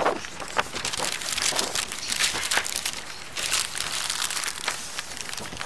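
Paper crinkling and rustling as cut-out collage pieces are handled, in irregular short bursts.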